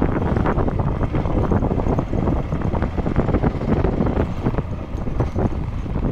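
Motorcycle riding at low speed over a rough dirt road, its engine running steadily under heavy wind buffeting on the microphone, with irregular knocks and rattles.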